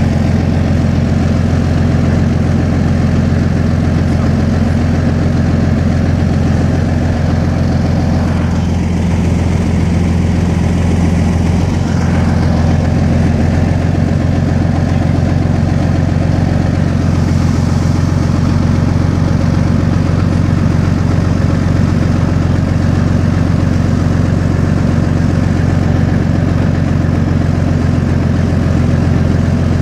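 Diesel engine of a BMP infantry fighting vehicle idling steadily with a deep, even rumble, heard from on top of the hull.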